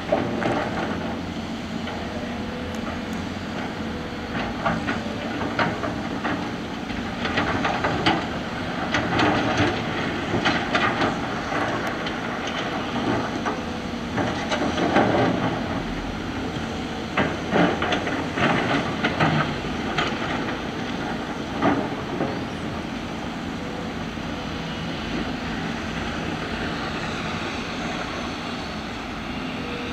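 Tracked excavators and articulated dump trucks working together, their diesel engines running steadily. Repeated clanks and knocks of steel buckets scraping and dropping rock and soil come in a busy stretch from about 7 to 22 seconds in.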